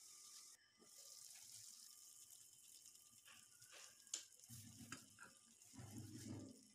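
Faint sizzling of chicken curry gravy cooking in a pan, with a few light ticks and two short low rumbles near the end.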